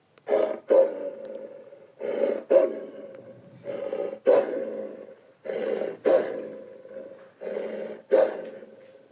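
Cartoon wolf's growl sound effects, coming in pairs of short rough bursts, about one pair every two seconds.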